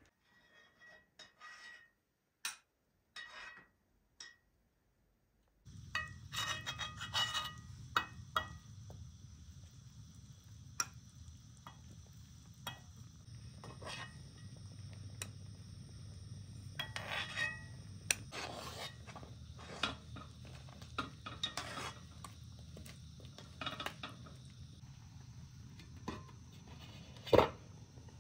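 Metal spoon clinking and scraping against a metal cooking pot as chicken in broth is stirred and ladled, in scattered irregular knocks. A steady low rumble sets in about five seconds in, and a single louder metal clank comes near the end.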